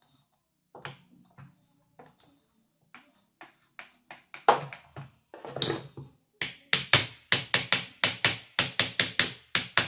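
Repeated sharp taps on the parts of a disassembled rotary hammer drill as a gear is worked into place, scattered at first and then a steady run of about three taps a second through the second half.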